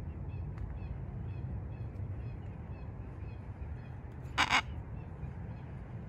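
A Miligold macaw (military × blue-and-gold hybrid) gives one short, harsh squawk a little over four seconds in. Under it run a steady low rumble and faint, rapidly repeated high chirping.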